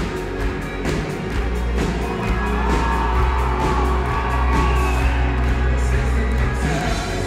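Rock band playing with a steady drum beat and heavy bass, with the crowd whooping.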